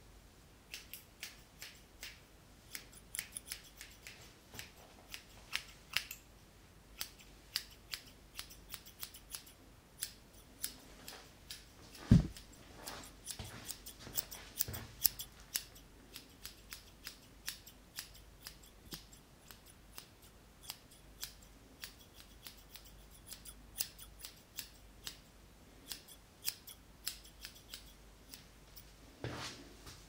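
Hair-cutting scissors snipping close to the microphone, in an irregular run of many short, crisp snips, trimming the hair shorter and even at the back. One louder thump comes about twelve seconds in.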